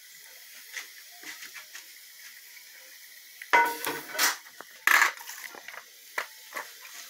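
Metal spoon clinking and clattering against an aluminium roasting pan, with lighter handling taps; the loudest clatters come in a quick cluster about three and a half to five seconds in, some with a brief metallic ring.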